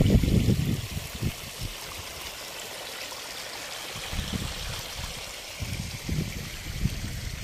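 Water gushing from the gates of a lay-flat plastic gated irrigation pipe into earth furrows: a steady rushing hiss. A few low thumps in the first second or so, and lighter ones later on.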